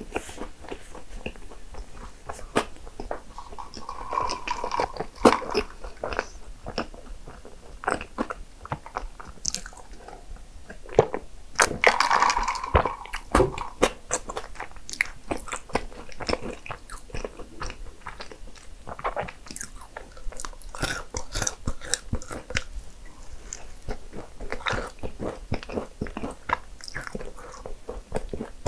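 Close-up eating sounds: a person biting and chewing cinnamon rolls, with crunchy bites and wet mouth sounds, and louder mouthfuls about four seconds in and again around twelve seconds.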